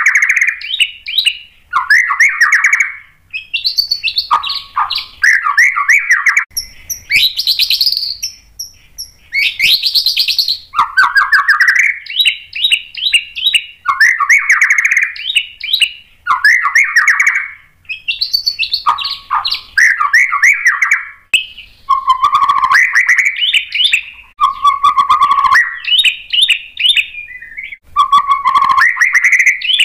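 White-rumped shama (murai batu) singing a long, varied song: quick phrases of rapid whistled notes, each a second or two long with short pauses between, some climbing to very high notes.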